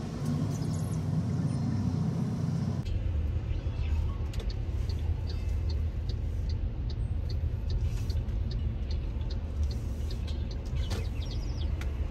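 Car driving: a steady low rumble of engine and road. The sound changes abruptly about three seconds in, and scattered light ticks follow.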